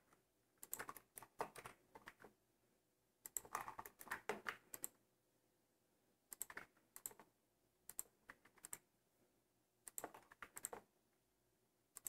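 Computer keyboard keys clicking quietly in about five short bursts of several quick presses, with pauses between. The presses are the Ctrl+R loop-cut shortcut being used again and again.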